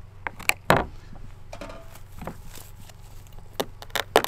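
Feathers being pulled by hand from a white-tailed ptarmigan's skin: a series of short, sharp rips at irregular intervals, the loudest just under a second in and near the end.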